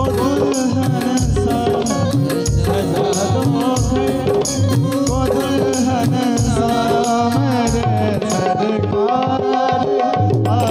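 Instrumental interlude of a live Hindi bhajan: an electronic keyboard plays a wavering melody over tabla and a steady percussion beat.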